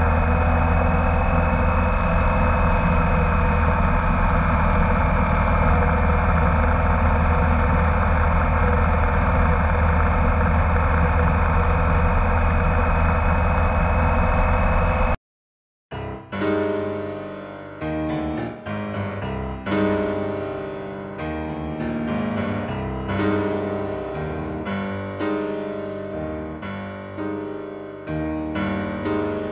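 A motorcycle running at a steady cruising speed, its engine heard over road and wind noise. About halfway through, the sound cuts out for under a second and piano music begins, playing to the end.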